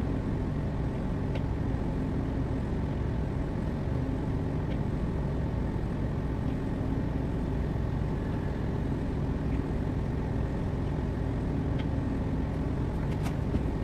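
Steady low rumble aboard a tanker moving slowly under way, with a few faint clicks now and then.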